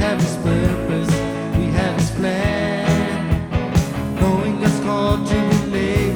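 Congregational worship song played by a band with a steady drum beat, with singing over it.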